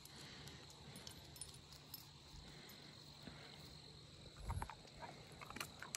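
Faint, steady, high chorus of insects. Light scattered crunches of footsteps on a gravel road sound over it, with a low thump about four and a half seconds in.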